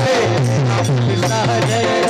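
Devotional bhajan music: a drum beats steadily about four times a second under sustained, gliding melody lines.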